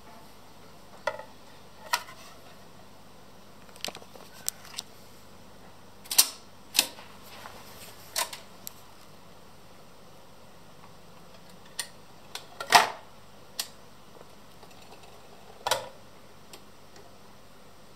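Braun PS600 record-changer turntable working: its changer mechanism and records give about a dozen sharp, irregularly spaced clicks and knocks. The loudest is about thirteen seconds in, as a record drops from the spindle onto the platter.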